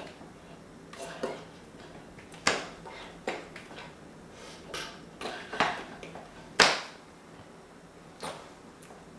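Sign language made audible: irregular soft slaps and taps as the signer's hands strike each other and his body, about nine in all, the loudest about two-thirds of the way through.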